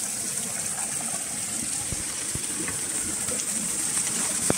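Small waterfall pouring into a rocky pool: a steady rush of water, with a few faint knocks and one sharper click near the end.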